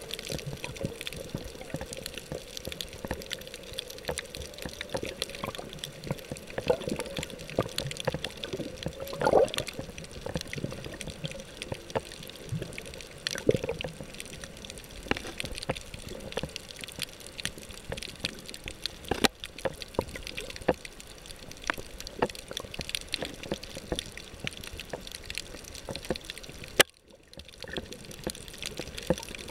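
Underwater sound over a coral reef picked up by a submerged camera: a steady hiss full of dense tiny clicks, with muffled water swirls that swell now and then. Near the end, a sharp click is followed by a brief drop-out.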